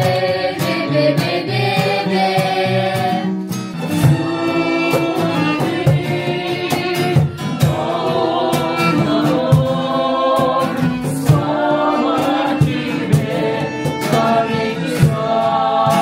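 Small live acoustic ensemble playing a children's song: strummed acoustic guitar, cajon hits, violin and a small wind pipe, with a group of voices singing the end of a verse about a second in.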